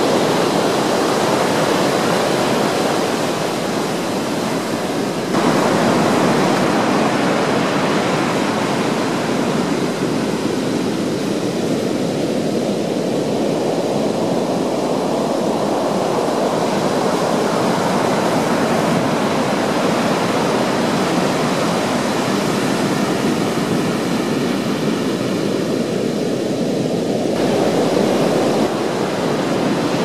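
Heavy Pacific surf breaking and washing through rocks onto the beach: a continuous rush of white water. The sound shifts abruptly about five seconds in and again near the end.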